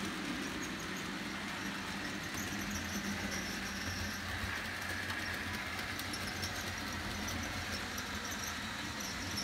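A model railway diesel locomotive and its tank wagons running along the track: a steady motor hum with wheels rolling over the rails and faint, intermittent high-pitched squeaks.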